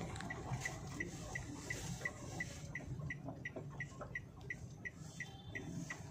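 A car's indicator ticking evenly, about three ticks a second, over the low hum of the engine and road heard inside the cabin.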